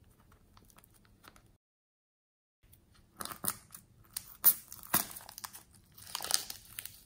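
Scissors cutting into a plastic piping bag packed with foam-bead slime: faint handling at first, then crackly plastic crinkling and sharp snips from about three seconds in, with the longest cut near the end. A short stretch of dead silence comes before the cutting.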